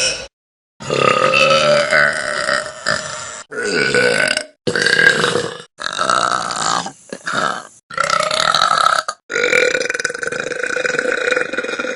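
A string of long, loud burps by women, about six in a row, each lasting one to three seconds and separated by short silent breaks.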